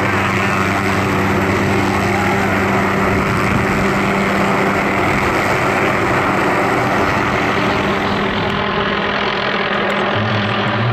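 Hughes MD 500 helicopter's turboshaft engine and rotors running at flight power as it hovers low and then flies overhead: a steady, loud rotor and turbine noise. The sharpest high hiss drops away about eight seconds in.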